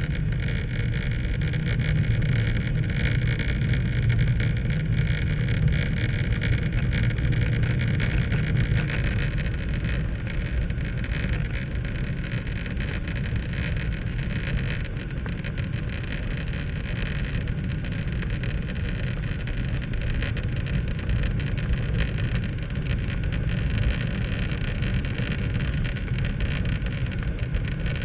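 Cabin noise of a Boeing 737-800 airliner on approach with its flaps extended: a steady rush of jet engines and airflow with a deep rumble, the rumble easing a little about nine seconds in.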